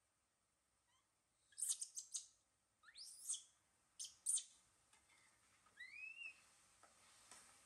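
Short high-pitched chirping and squeaky animal calls, some sliding up or down in pitch: a quick cluster about a second and a half in, more around three and four seconds, and a couple of arcing calls that rise then fall near six seconds.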